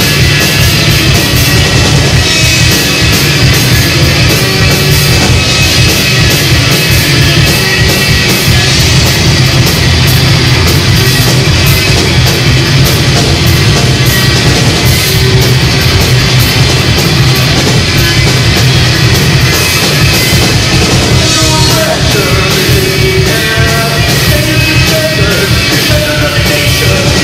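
Live rock band playing loud, in a dense, unbroken wall of sound with a steady driving beat.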